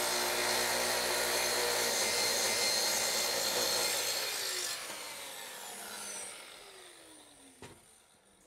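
Festool track saw ripping a straight edge along a maple slab. It runs under load for about four seconds, then is switched off and the blade winds down in falling pitch. There is a single light knock near the end.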